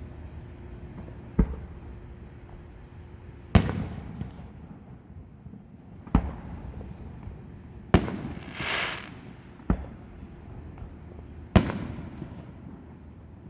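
Fireworks bursting: six sharp bangs spaced a second or two apart, several followed by a rolling echo, with a brief hiss shortly after the fourth bang.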